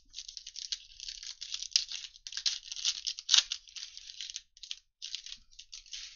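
Foil wrapper of a 2021 Panini Illusions football card pack crinkling and tearing as it is ripped open, with the loudest rip a little after three seconds in.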